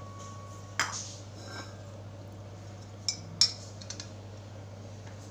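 A few sharp metallic clinks and taps, the loudest about three and a half seconds in, from metal refrigeration tools and fittings being handled while hooking up to recharge a refrigerator with refrigerant, over a steady low hum.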